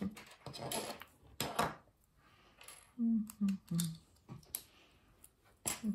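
Plastic Lego bricks clicking and clattering as loose pieces are picked through and pressed together. The sharpest clicks come within the first two seconds and again just before the end.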